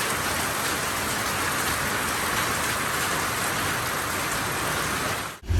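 Rain falling steadily, an even hiss; it cuts off suddenly near the end.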